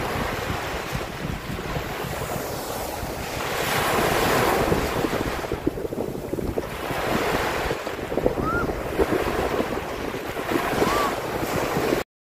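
Small waves breaking and washing up a sandy beach, the surf swelling twice, with wind buffeting the microphone. The sound cuts off suddenly near the end.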